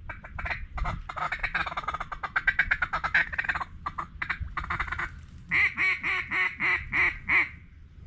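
Mallard duck call blown close by in a hunting blind: a fast run of short clucks, a feed chuckle, for about five seconds, then a string of about seven loud quacks, each falling in pitch.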